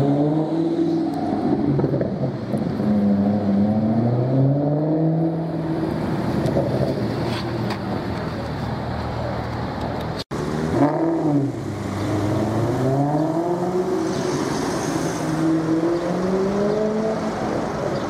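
Maserati GranTurismo S's 4.7-litre V8 revving as it accelerates, its loud engine note climbing and dropping several times through the gears. A short break about ten seconds in is followed by another sharp rev.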